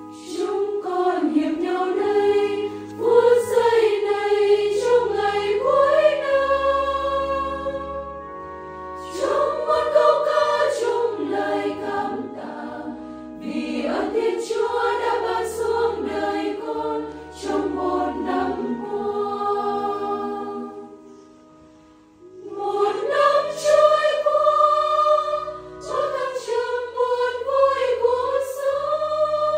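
Women's choir singing a Vietnamese Catholic thanksgiving hymn in phrases, with low sustained notes changing underneath the voices. The singing breaks briefly about 8 seconds in and drops away for a moment a little past the two-thirds mark before the next phrase.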